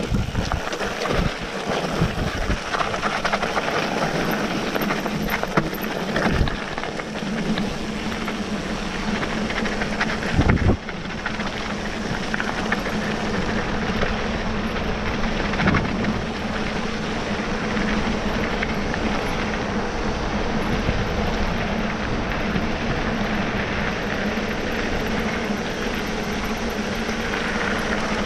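Wind rushing over the microphone and tyres rolling over gravel as a mountain bike descends a dirt road at speed, with a steady low hum under the noise. Sharp knocks and rattles from the bike hitting bumps come several times in the first ten seconds or so, the loudest about ten and a half seconds in.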